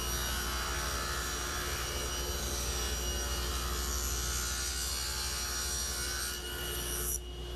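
Table saw ripping a narrow hickory strip off a wider board, a steady cutting sound over the running blade; the high cutting noise stops abruptly about seven seconds in.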